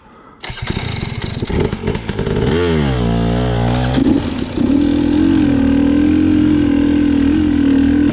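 Dirt bike engine coming on suddenly about half a second in, revving up and down under throttle, then holding a steady high-revving pitch as the bike rides on.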